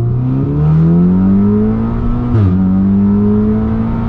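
Audi S3's big-turbo 2.0-litre turbocharged four-cylinder at full throttle, heard from inside the cabin: the revs climb, drop sharply at a quick upshift a little past halfway, then climb again.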